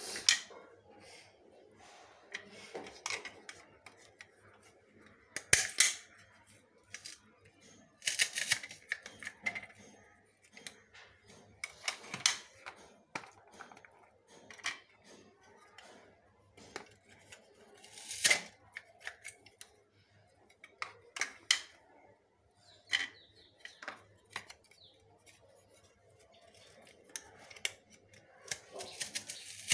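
Small onions being cut with a pink handheld plastic onion slicer: sharp crisp snips and clicks a few seconds apart, with softer handling of onions and dry peel between.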